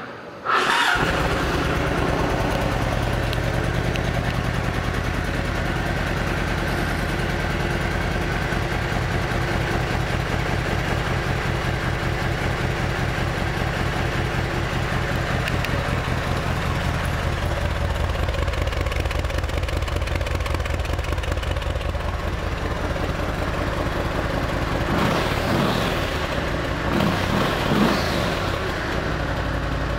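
2006 Yamaha Road Star 1700's air-cooled V-twin catching in the first second and settling into a steady idle, then revved a few times near the end.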